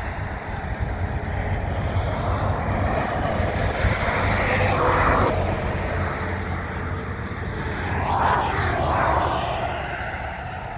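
Highway traffic going by at speed: the tyre and engine noise of semi-trucks and cars, swelling as vehicles pass about four and eight seconds in.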